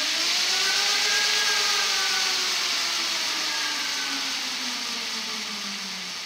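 Electric motorcycle's motor spinning the rear wheel on a stand: a whine that rises to a peak about a second in, then falls slowly as the wheel winds down, over a steady hiss.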